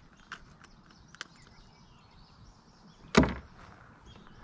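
A few faint clicks, then one sharp thump about three seconds in, the loudest sound here.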